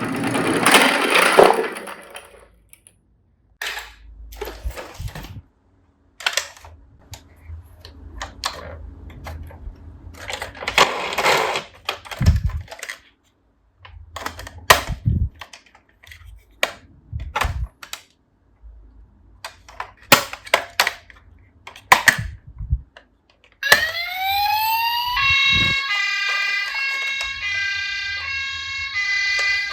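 Scattered knocks and clicks of plastic toy cars, with a burst of rattling noise at the start. Near the end a toy emergency vehicle's electronic siren sweeps quickly upward, then sounds a stepped wail that alternates between tones.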